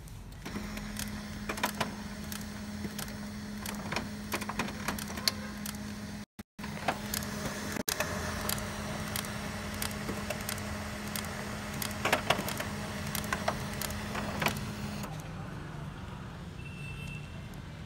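HP LaserJet Pro MFP M227fdw laser printer starting up after being switched on: a steady motor hum with many clicks and rattles, stopping about fifteen seconds in. This is the loud noise reported as the printer's fault.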